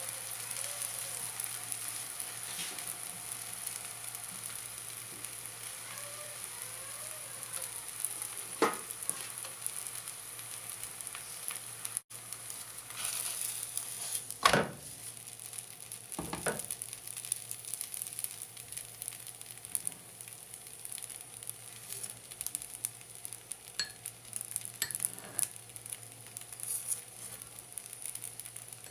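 Methi paratha frying in oil on a flat nonstick pan, a steady high sizzle, with a few sharp knocks as the bread and pan are handled, the loudest about halfway through when it is flipped.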